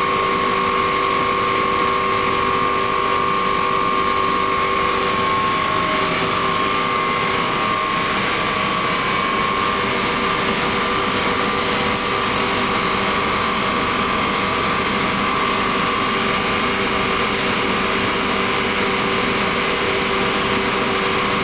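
Large shell boiler's forced-draught burner running: a steady drone with a constant high whine over a hiss.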